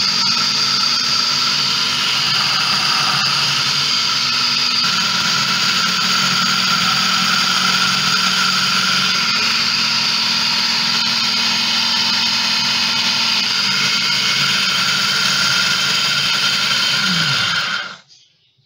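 Electric food processor running steadily at full speed, its blade chopping slices of bread into crumbs. The motor cuts off abruptly near the end.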